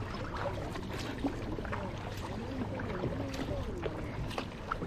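Kayak paddling on lake water: paddle blades dipping and splashing in short scattered strokes, with faint voices of other people in the background.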